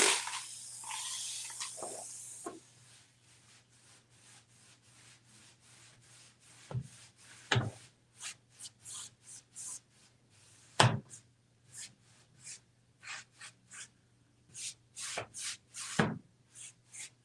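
A spray bottle misting water onto a painted wooden wardrobe door for the first couple of seconds, then a rag rubbing the damp paint in quick strokes, about three a second. A few louder knocks against the door come in between, over a faint steady hum.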